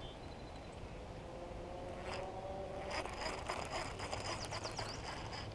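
Baitcasting reel being cranked on a retrieve: a faint rising gear whine, then rapid clicking from about three seconds in.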